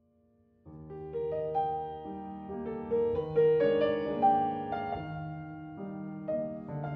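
Background piano music: a melody of notes and chords that comes in after a brief near-silent gap at the start.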